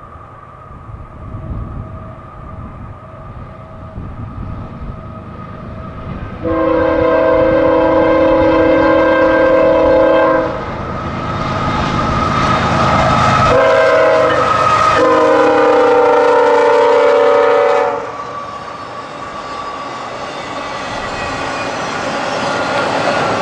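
A CSX diesel freight locomotive rumbles up, then its air horn sounds a chord of several tones in two long blasts, a short one and a long one, the long-long-short-long grade-crossing signal. Then double-stack intermodal cars roll past with a steady rushing, clacking wheel noise that grows louder near the end.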